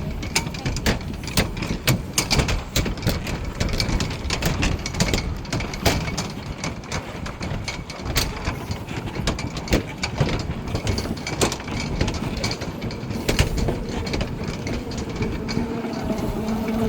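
Busy commuter pedestrian ambience: many overlapping footsteps clicking on hard paving at an irregular pace, over a steady low rumble.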